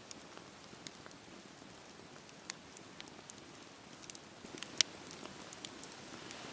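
Campfire burning with a steady soft hiss and frequent sharp crackles and pops of the wood, the loudest pop coming a little under five seconds in.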